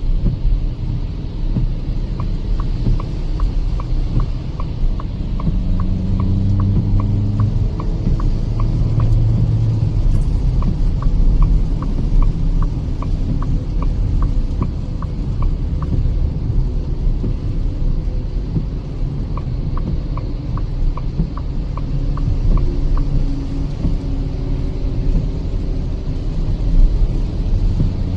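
Inside a Kia Seltos cabin at highway speed on a wet road: a steady low rumble of road, tyre and engine noise. Three times, a run of regular clicking at about three clicks a second lasts a few seconds, the turn indicator ticking during lane changes.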